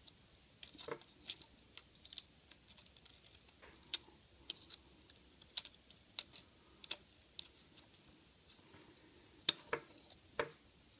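Light, irregular clicks and taps of a plastic N scale locomotive body shell being worked back onto its chassis by hand with a small screwdriver, with two sharper clicks near the end.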